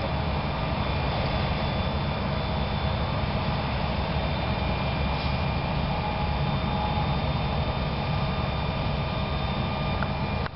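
Steady low rumble of motorway traffic passing, with a few faint steady whines over it.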